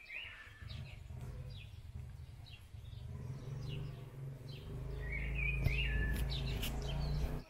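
Small birds chirping, with a warbling phrase about five seconds in, over a low rumble that grows louder in the second half and cuts off suddenly at the end.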